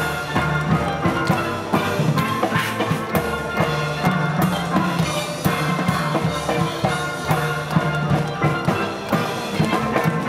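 Steel band playing live: steelpans ringing out a melody and chords over drums keeping a steady beat.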